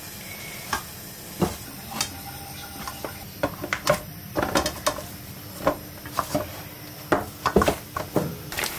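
Hand mixing and kneading roti dough in a stainless steel bowl: irregular knocks and scrapes of fingers and dough against the metal bowl.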